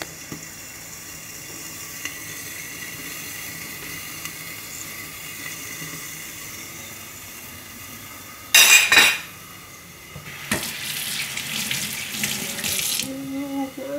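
Kitchen tap running into a stainless-steel sink for about two and a half seconds near the end. Before it comes one short, loud burst of noise about eight and a half seconds in, and before that a faint steady hiss.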